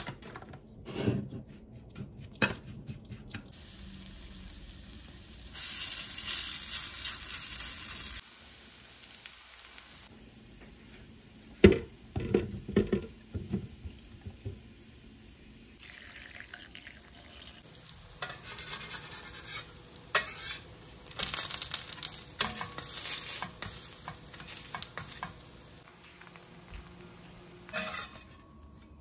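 Kitchen cooking sounds: a fork scraping and stirring shredded potato in a bowl, knocks and clatter as ingredients are tipped into a food-processor jar, then shredded-potato pancakes sizzling and crackling in oil in a stainless-steel frying pan, with a metal spatula scraping the pan.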